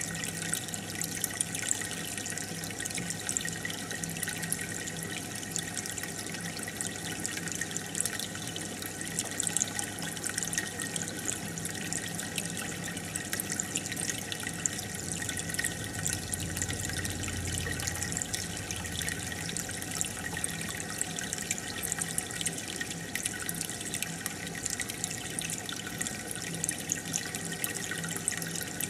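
Aquarium water bubbling steadily: air from an air stone rising and breaking at the surface with many small pops, over a faint low hum.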